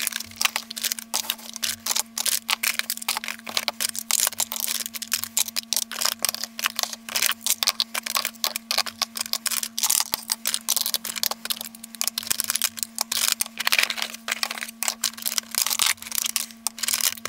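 Plastic makeup compacts and pots clicking and clattering as they are lifted out of a clear acrylic drawer organiser, several knocks a second with no pause, over a steady low hum.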